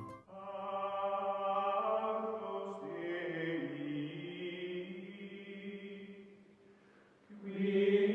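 Background music of long, held chant-like vocal tones, a drone in the style of a mantra. The pitch shifts about three seconds in, the tone fades away, and a new held tone swells in near the end.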